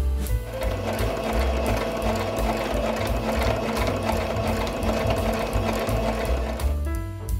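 Electric sewing machine running steadily as it stitches a seam through fabric. It starts about half a second in and stops near the end.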